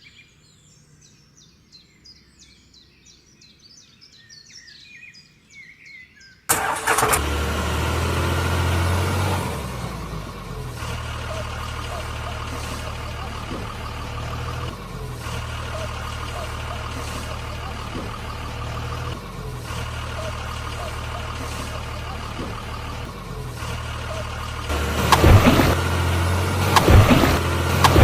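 Birds chirp faintly, then a heavy vehicle engine cuts in suddenly about six and a half seconds in and runs steadily with a low, even drone. Near the end it grows louder, with several sharp knocks.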